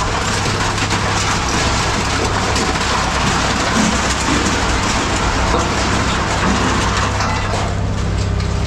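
Heavy machinery running with a steady low hum under a dense, continuous rattle of scrap metal being moved or handled. The rattle dies away near the end while the machine hum keeps going.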